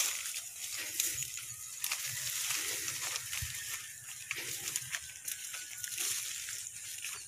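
Grass and rice stalks rustling and crackling against someone walking along a narrow paddy dike path, with footsteps and a low rumble of handling or wind on the microphone.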